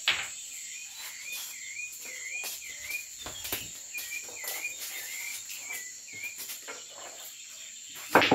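Crickets chirping steadily, with a repeated wavering chirp through the middle. A sharp click at the start, and near the end a loud sharp knock of a cue striking the cue ball on a pool table.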